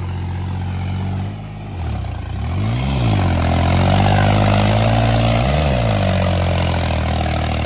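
Tractor's diesel engine working hard under load as it drives through deep mud with its belly dragging on the ground. The engine note rises and falls briefly twice, around three seconds in and again near six seconds, and the sound grows louder from about three seconds on.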